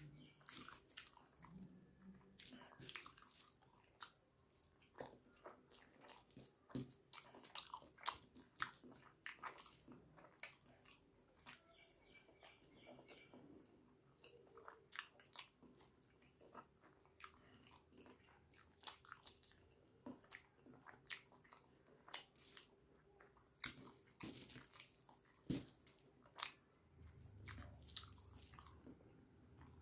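Faint close-up eating sounds: chewing and wet mouth smacks, with soft squishes of rice and curry being mixed and eaten by hand, as an irregular run of small clicks.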